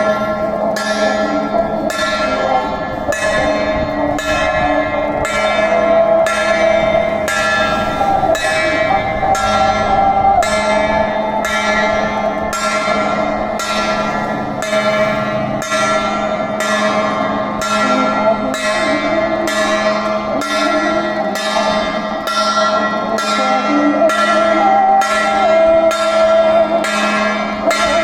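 Bell-like metal percussion struck in a steady rhythm, about one and a half strokes a second, each stroke ringing on into the next, over a constant low hum.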